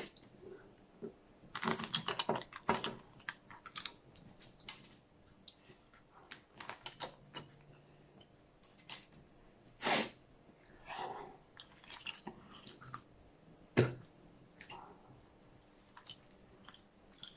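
Scattered small clicks, taps and crackles, with a few louder knocks: hard-boiled eggs being cracked and their shells peeled off against a plate without using hands.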